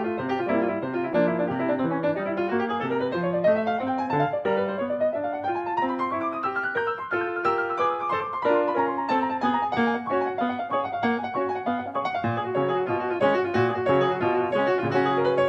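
Background piano music: a flowing melody over repeated chords, with quick rising and falling runs of notes, one long climbing run through the middle and another starting near the end.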